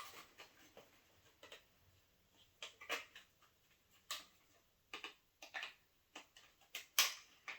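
Scattered light clicks and taps from handling DDR4 memory modules on a desk, a dozen or so irregular small impacts, a few quicker ones near the end.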